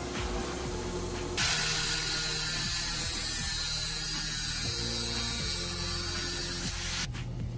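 Angle grinder with an abrasive cut-off wheel cutting through a metal rod: a loud, steady, harsh hiss that starts about a second and a half in and stops about half a second before the end.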